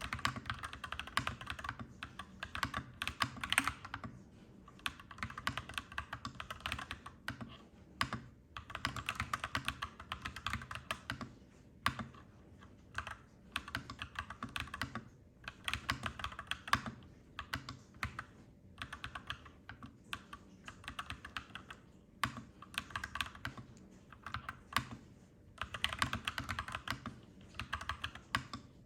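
Clacky mechanical keyboard being typed on in quick bursts of keystrokes, with brief pauses between runs.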